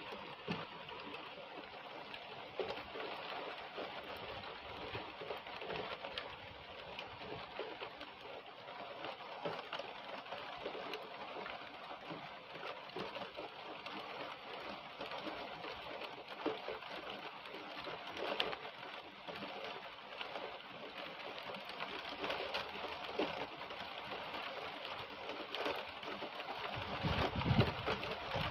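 Heavy rain pouring steadily through conifer trees, a dense hiss of countless drops striking needles and the ground. A low rumble swells near the end.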